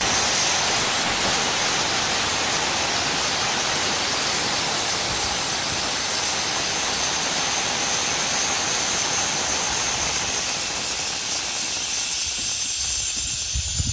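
Air hissing steadily out of a car tyre's open valve as the tyre is deflated, starting suddenly and easing a little near the end.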